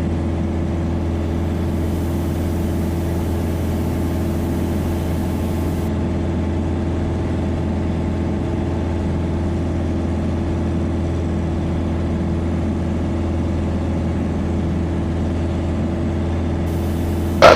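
Piper Dakota's six-cylinder Lycoming engine and propeller heard from the cabin, a low, steady drone with an even hum on top, unchanging throughout.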